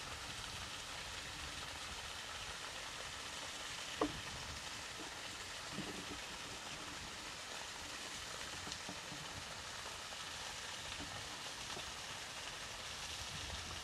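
Steady, even hiss of outdoor ambience by a still pond, with one short click about four seconds in.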